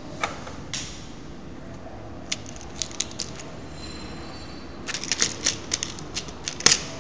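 Small plastic construction-kit parts and their bolts clicking and clattering as they are handled and fastened together: a few scattered clicks, then a quick run of clicks in the second half, the sharpest near the end.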